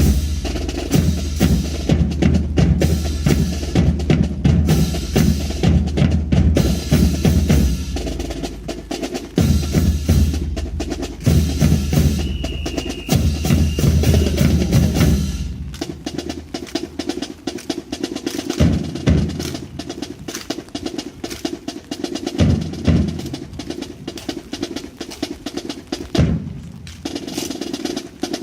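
Marching drum corps playing: snare drum rolls over heavy bass drum beats, dense for about the first half, then thinning to sparser, spaced hits.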